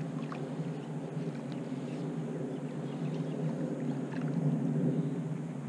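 Steady low outdoor rumble, swelling slightly about four seconds in, with a few faint bird chirps.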